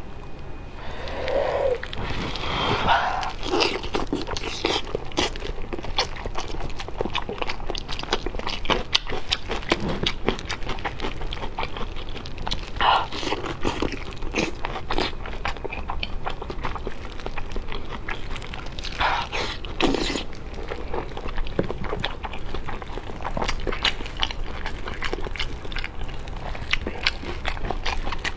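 Close-miked biting and chewing of braised pork belly rolls, with many quick, irregular mouth clicks.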